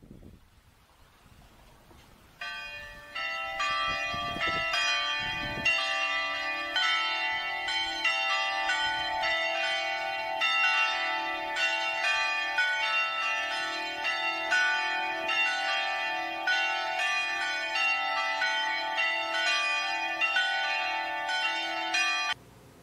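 Church bells ringing a peal: a quick succession of struck bell notes over a sustained lower tone. They come in about two seconds in and cut off abruptly near the end.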